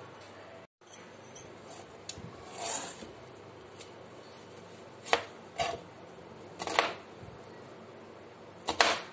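Chef's knife cutting a red onion on a plastic cutting board: a handful of sharp, separate knocks of the blade striking the board, the last one a quick double, with softer rubbing and rustling of the onion between cuts.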